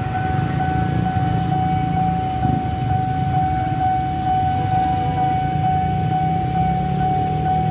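Railway level-crossing warning alarm sounding one steady high electronic tone with a faint regular pulse. Underneath is a low rumble from the queued traffic and the departing train.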